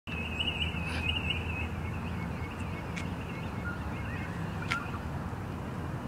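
Dawn chorus of Australian birds: a wavering chatter of song in the first couple of seconds, then a few short, sharp single calls, over a steady low rumble.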